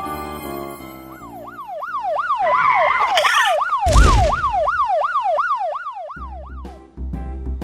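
Electronic alarm siren wailing, its pitch sweeping up and down about two and a half times a second, with a loud crash about three seconds in. Background music plays at the start and comes back near the end.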